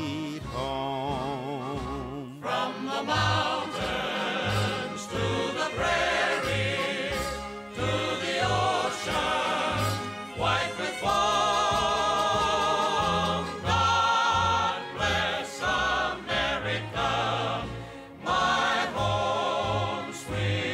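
Background music: a choir singing over an orchestra.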